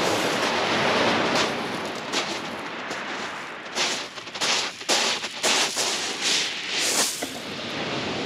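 Small waves washing up a shingle beach with a steady hiss. From about halfway in, a string of sharp, irregular crunches and knocks close to the microphone as a person moves about on the shingle right beside the camera.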